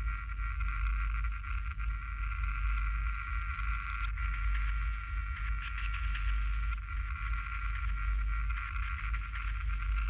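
A steady noise drone: hiss with fixed high whistling tones over a low rumble, shifting slightly about four seconds in.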